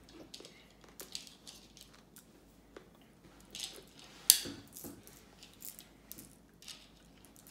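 M&M candies being picked off a ceramic plate by hand: scattered small clicks and taps of the hard candy shells on the plate, the sharpest about four seconds in.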